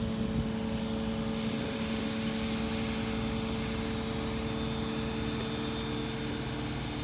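Steady machine drone with a constant low hum that does not change.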